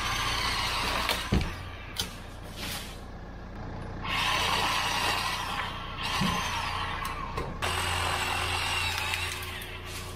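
Bauer 20V battery-powered 10-inch chainsaw's electric motor whining in three bursts as it cuts tree limbs, each time winding down in pitch when the trigger is let go, with a few sharp cracks between bursts. A low steady drone runs underneath.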